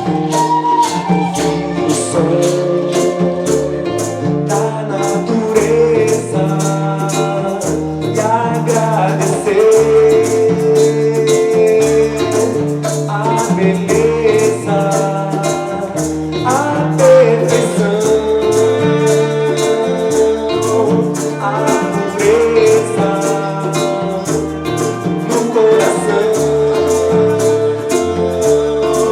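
Live band playing an instrumental passage: plucked guitar and bass over a steady beat of hand percussion, with a long-held melody line on top.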